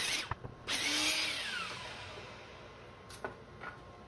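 Miter saw crosscutting a yellow cedar board: a burst about 0.7 s in, then the blade coasts down with a falling whine that fades over the next couple of seconds. A few light knocks near the end as the cut piece is handled.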